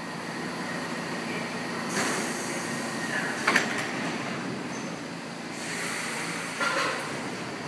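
Stockholm metro C6H train standing at a platform with its equipment humming, and two bursts of air hissing, one about two seconds in and one about six seconds in, each joined by a sharp clunk.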